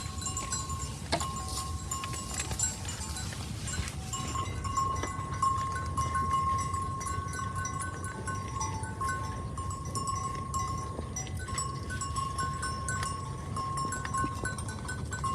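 Cowbells on grazing cattle clinking and ringing steadily, with many small irregular clinks.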